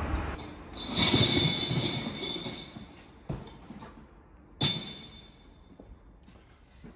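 Two loud metallic clangs, each ringing out with a high metal tone: the first about a second in rings longest, the second, sharper strike comes just before five seconds in. A lighter click falls between them.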